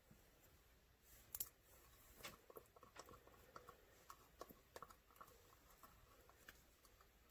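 Faint, irregular scrapes and small clicks of a flat craft stick working against the inside of a plastic mixing cup of two-part epoxy resin.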